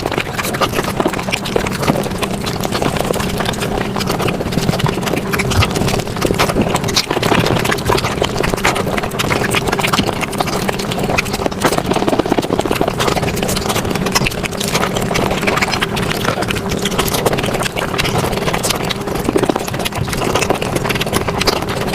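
Mukbang eating and chewing sounds played at five times normal speed: a dense, rapid patter of clicks and smacks, with a steady low hum underneath.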